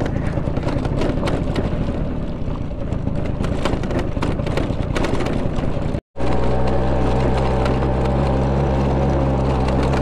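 LML NV scooter's two-stroke single-cylinder engine running under way on a rough dirt track, with frequent rattles and knocks from the bumps. The sound cuts out for a moment about six seconds in, then comes back as a steadier, even engine note with fewer rattles.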